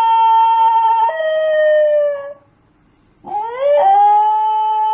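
Basenji yodel-howling. A long held note breaks down to a lower pitch about a second in and fades out. After a short pause, a second call slides up and is held.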